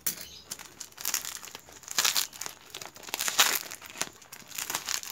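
Plastic courier mailer wrapping crinkling and rustling in irregular bursts as hands pull it open, loudest about two and three and a half seconds in.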